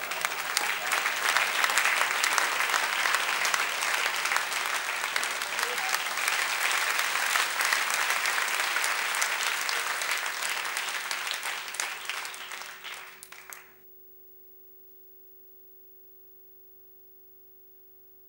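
Audience applauding: dense, even clapping that dies away about thirteen seconds in, leaving near silence with a faint steady hum.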